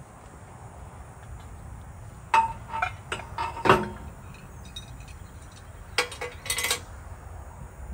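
Metal clanks and clinks as a railroad crossing gate arm's metal pipe is worked by hand against its gate mechanism. There is a cluster of knocks a little over two seconds in, the loudest near the four-second mark with a brief ring, and a second cluster of clinks about six seconds in.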